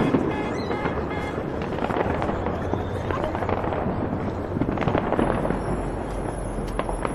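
Fireworks display going off in a dense, continuous run of bangs and crackles.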